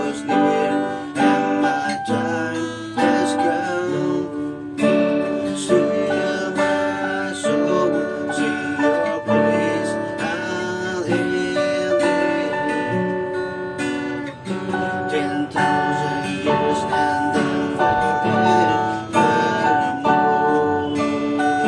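Techno T9690i electronic keyboard playing a tune of pitched notes over a steady beat.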